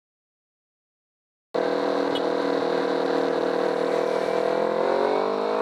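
Silence for about the first second and a half, then a Kawasaki Ninja 250R's parallel-twin engine cuts in, running under way over a steady rush of noise. Its pitch rises slowly in the last second or so as the bike accelerates.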